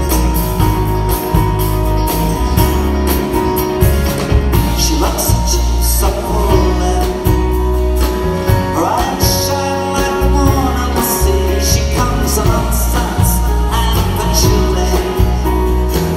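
Live rock band in concert: acoustic and electric guitars, drum kit and keyboard playing a mid-tempo song with a steady beat, with a voice singing over it.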